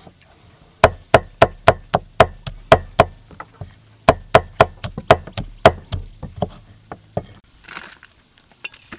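Kitchen knife slicing fresh red chili peppers on a thick wooden chopping block: a steady run of knocks, about four a second, with a short break partway, stopping about seven seconds in.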